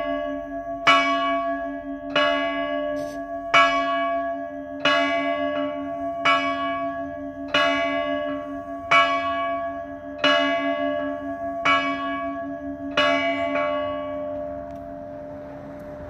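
A single church bell tolling, struck about once every 1.3 seconds for about ten strokes. Its hum rings on between the strokes. The strokes stop near the end and the ringing dies away.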